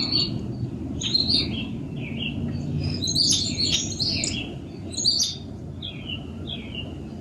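Small birds chirping: a busy run of short, high chirps, followed near the end by a few evenly spaced falling notes, over a steady low background rumble.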